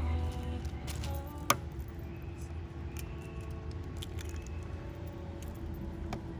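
A few light clicks and one sharp knock about a second and a half in, over a steady low hum, as the background music fades out near the start.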